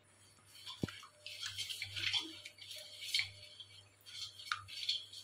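Water swishing and sloshing in a steel bowl as sugar is stirred in by hand, in irregular swirls with a few light knocks against the steel.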